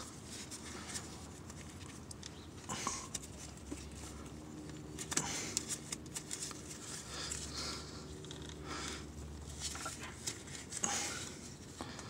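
Faint scattered clicks, taps and scrapes of hands and a tool working at the plastic quick-connect fitting of a truck's clutch hydraulic line. A faint low hum runs through the middle.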